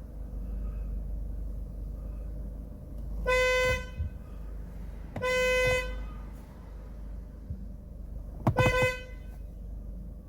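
Peugeot 307 car horn sounding in three short blasts about two seconds apart, the last one choppy. It is the horn working again after its earth wire from the back of the airbag unit has been repaired.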